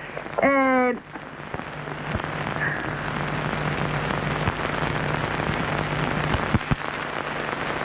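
A steady rushing hiss builds over the first couple of seconds and then holds, with a low hum under it and a few faint clicks. A brief voice sounds right at the start.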